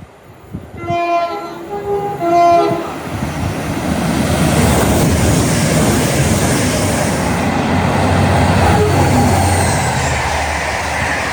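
Passing train sounding a two-tone horn for about two seconds, its low and high notes alternating, then running by with a loud, steady rush of wheel and air noise that fades near the end.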